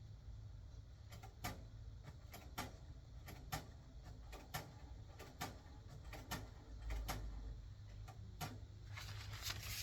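Light, irregular key or button clicks, roughly two a second, as a PIN code is typed in during printer setup, with a soft rustle near the end.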